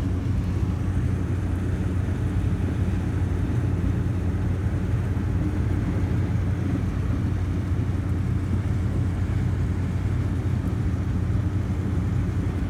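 Combine harvester running steadily while harvesting corn, heard from inside the cab as a constant low drone of engine and machinery.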